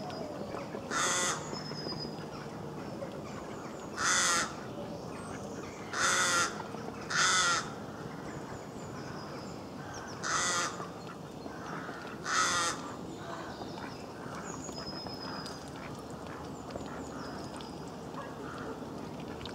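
A crow cawing six times, harsh calls of about half a second each, irregularly spaced over the first two-thirds, with small birds chirping faintly in the background.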